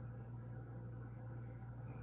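A pause between a sleeping woman's snores: only a steady low hum and faint room noise.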